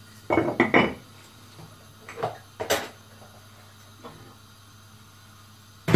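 Plastic kitchen containers being handled and set down on a counter: a few scattered clicks and knocks, the busiest cluster about half a second in and a heavier knock at the very end.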